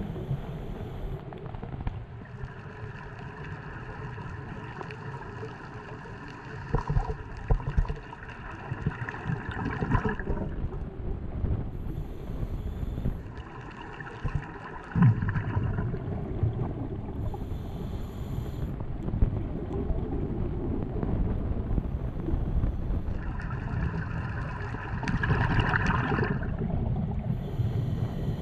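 Muffled underwater sound of scuba diving through a camera housing: a steady low rumble of exhaled bubbles and water, with short hissing regulator breaths every few seconds. A droning hum comes and goes for several seconds at a time, and a few knocks sound.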